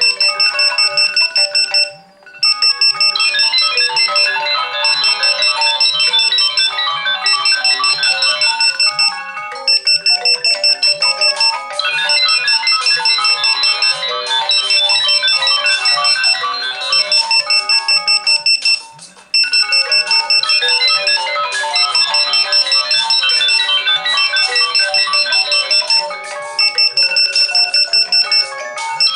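Several mobile phone alarms going off at once: a looping electronic alarm melody, a pulsing high beep-beep alarm tone, and a phone's vibration motor buzzing against the table about once a second. The melody cuts out briefly twice and starts again.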